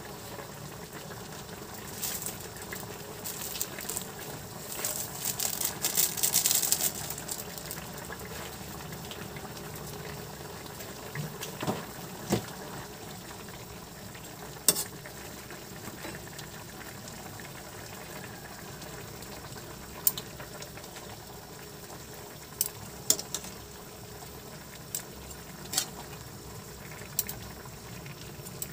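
Pork chops and potatoes simmering in sauce in a metal wok on a gas burner: a steady bubbling. A spell of louder crackling a few seconds in, then a metal ladle and spatula scraping and knocking against the wok now and then as the meat is turned.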